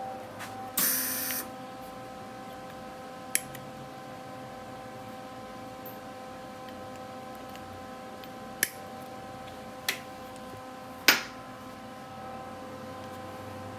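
MIG welder at the workbench: a short hiss from the welding gun about a second in, then four sharp clicks of metal tools being handled, the last the loudest, over a steady hum.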